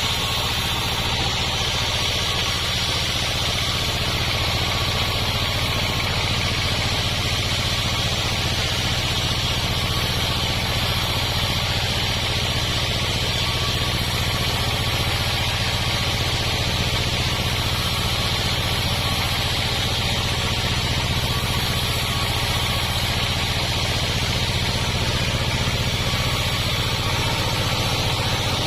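Sawmill machinery running steadily without a break: a low engine drone under a strong, even hiss higher up.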